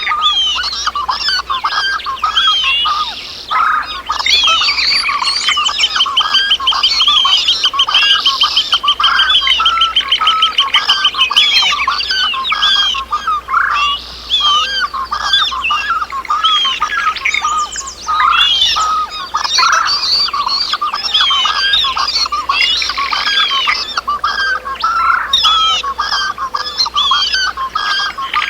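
A chorus of many birds calling and singing at once, dense overlapping chirps and squawks. A fast, even trill runs through it from about five seconds in, for about six seconds.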